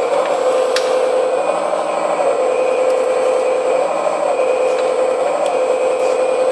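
RC4WD scale hydraulic excavator running: a steady whine from its hydraulic pump and sound-card engine noise, swelling and rising slightly in pitch several times as the hydraulics are worked, with a few faint clicks.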